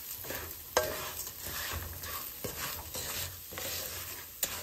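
Wooden spatula stirring raw rice, onion and garlic as they toast in hot oil in a nonstick skillet: dry grains scraping and rattling in repeated strokes over a light sizzle. A sharp tap of the spatula on the pan rings out about a second in, with another near the end.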